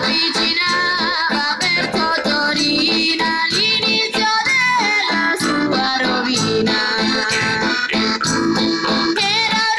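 Sicilian jaw harp (marranzanu, scacciapensieri) played with rapid plucks and wavering, shifting overtones over recorded backing music with guitar.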